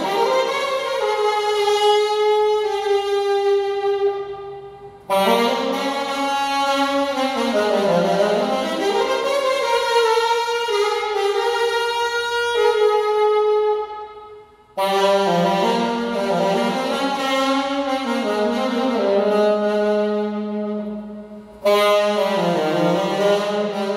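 Solo alto saxophone playing slow, held melodic phrases, broken by short pauses for breath about 5, 15 and 22 seconds in.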